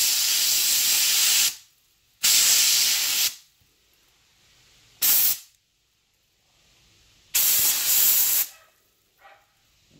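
Compressed-air blow gun fired in four blasts at an engine valve, blowing loosened carbon deposits off it; the first blasts are longer and the third is only a short burst.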